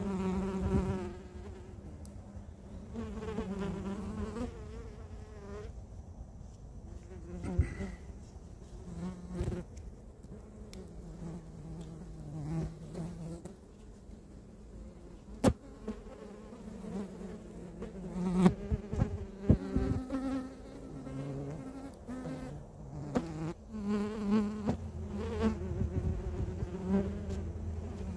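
Flying insects buzzing close by, the drone wavering up and down in pitch as they circle, with a few sharp knocks in between.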